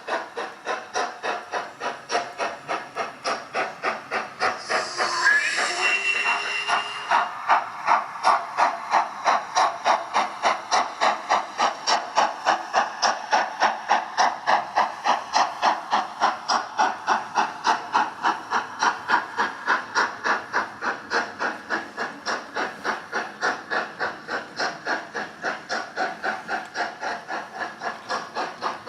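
Digital sound decoder in a model steam locomotive, playing a recorded LMS Black 5's exhaust beats at a steady rhythm of about three chuffs a second. About five seconds in comes a brief burst of hiss with a short whistle.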